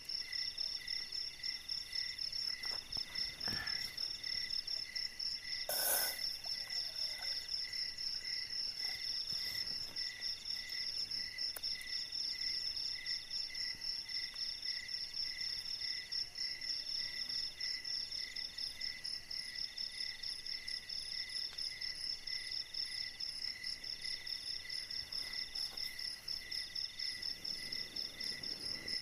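Night chorus of crickets and other insects: several trills layered at once, a high continuous pulsing one, a middle one in repeated chirps about a second long, and a lower one pulsing a few times a second. A brief sharp knock about six seconds in.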